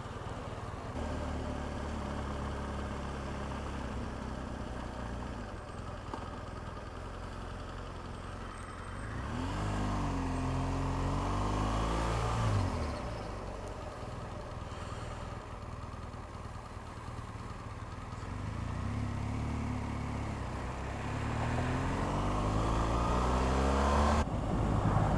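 A 2014 BMW R1200GS's boxer-twin engine runs under way, heard up close beside a cylinder. It holds a steady cruise, then the revs climb about a third of the way in and drop off sharply, and climb again near the end.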